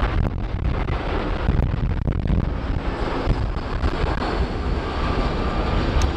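Airbus A320-family jetliner on final approach with its landing gear down, turbofan engines giving a steady, loud jet noise, with wind buffeting the microphone.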